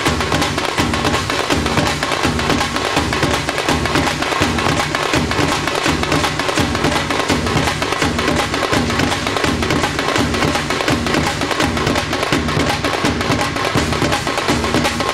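Live Tamil folk drum ensemble playing a fast, steady rhythm, with heavy low drum strokes and sharp, wood-like hits.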